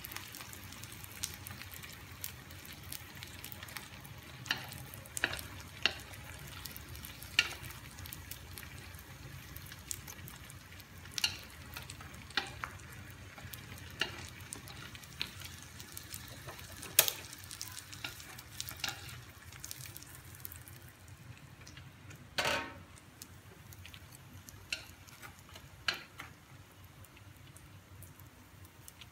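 Oil sizzling steadily as rice-paper and fish-cake sandwiches deep-fry in an aluminium wok, with frequent sharp clicks and taps of wooden chopsticks turning the pieces against the pan. The sizzle thins out near the end.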